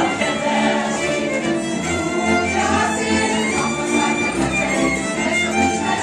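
Hungarian folk dance music led by a fiddle, with a steady pulsing bass beat.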